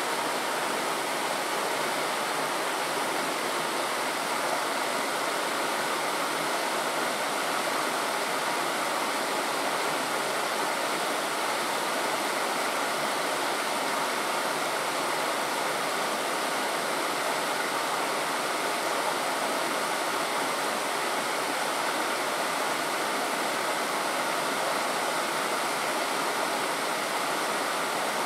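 Steady rushing of flowing stream water, an even noise with no breaks and no other events.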